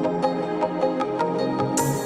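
Background music: soft new-age style track with held notes and a light, steady percussive beat.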